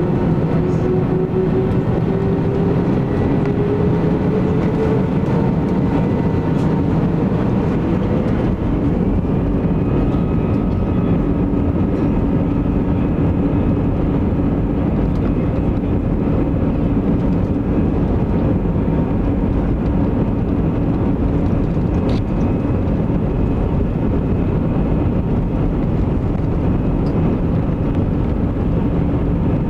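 Airbus A320 jet engines heard from inside the cabin over the wing during the takeoff roll on a wet runway: a loud, steady rush of engine and rolling noise, with a whine that rises over the first several seconds as the engines spool up, then holds steady.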